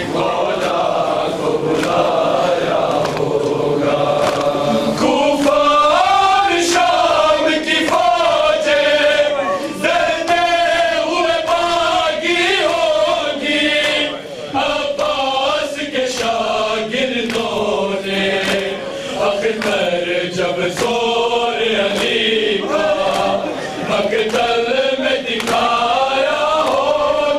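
A group of men chanting a noha (Shia mourning lament) together in a call-and-response style. Throughout, a steady rhythm of sharp slaps carries on underneath: hands striking chests in matam.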